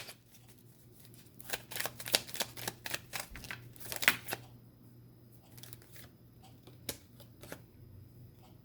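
Tarot cards being shuffled: a quick run of snapping riffles for about three seconds, then a few single card clicks.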